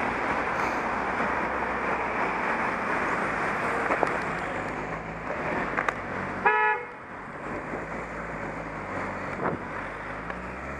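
A car horn gives one short toot about six and a half seconds in, over steady wind and road noise from a moving bicycle.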